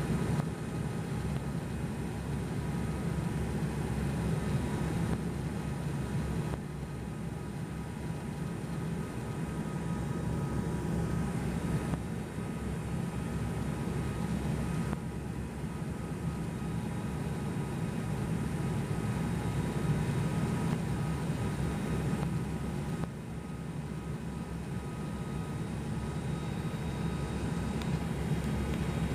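Steady drone of an ATR 72-200's Pratt & Whitney PW124B turboprop engines and propellers heard inside the passenger cabin during the approach, with a few faint steady whines above the low hum.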